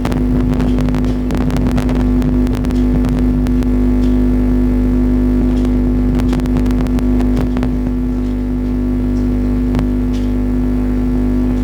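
Computer keyboard typing: fast key clicks in a dense run for the first seven seconds or so, then only scattered keystrokes, over a loud steady mechanical hum.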